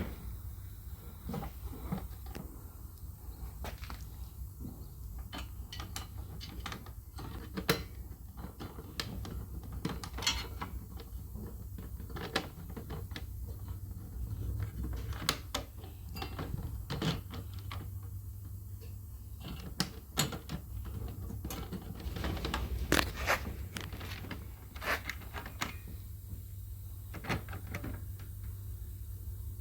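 Irregular metallic clicks and light knocks of bolts and hand tools being fitted to a car's firewall plate, over a steady low hum.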